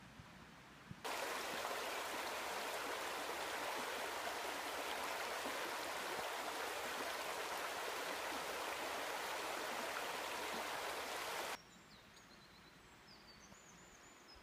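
Stream water rushing: a steady hiss that starts abruptly about a second in and cuts off suddenly about three seconds before the end. Faint bird chirps follow.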